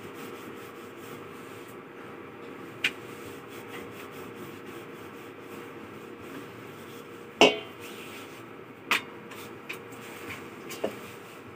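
Wooden rolling pin rolling out roti dough on a round board, a soft steady rubbing, with a few sharp knocks of the pin and pans, the loudest about halfway through.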